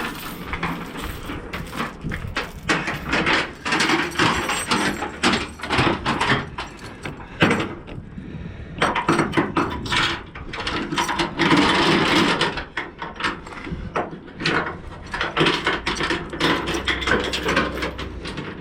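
Steel load-securement chain being fed and pulled along a flatbed trailer, clanking and rattling with many sharp knocks and scrapes, busiest about two-thirds of the way through.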